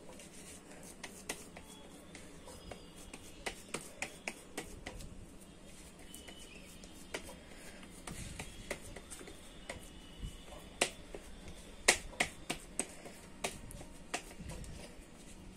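Hands patting and pressing soft masoor dal dough flat in a plastic plate: irregular sharp pats and clicks, the loudest about twelve seconds in.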